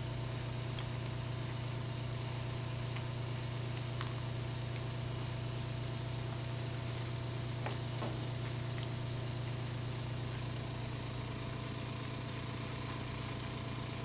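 Electric vacuum pump running with a steady, even hum, drawing the air out of a vacuum bag over a carbon fiber tube layup.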